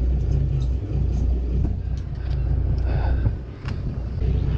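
A low steady rumble, with a few faint clicks and scrapes of a fillet knife working a pollock on a plastic cutting board.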